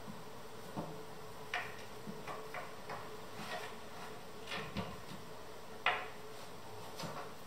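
Curved bentwood rocking chair frame pieces being handled and fitted together at a joint: irregular light wooden knocks and clicks, the sharpest about six seconds in, over a faint steady hum.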